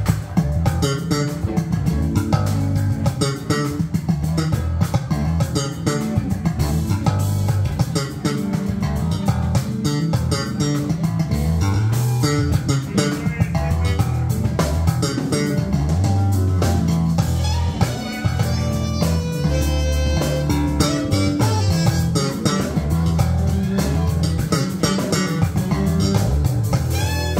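Live instrumental band music: bass guitar and electric guitar over a drum kit, playing steadily.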